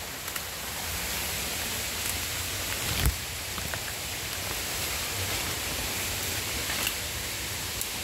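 Jungle waterfall rushing steadily, with one dull thump about three seconds in.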